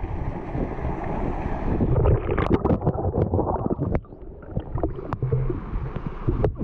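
Waterfall water rushing and splashing, with wind on the microphone. From about two seconds in, a run of sharp knocks and splashes.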